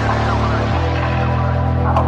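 Electronic hip-hop backing music with sustained deep bass notes that change every half second or so.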